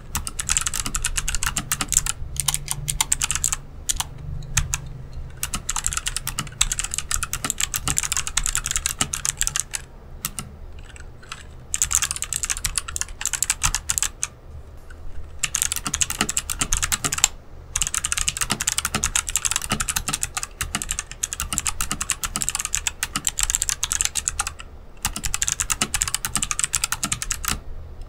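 Fast continuous typing on a Rakk Lam-Ang Pro mechanical keyboard fitted with clicky Kailh Box White switches, a dense stream of key clicks. The typing breaks off briefly about ten seconds in and again about fifteen seconds in.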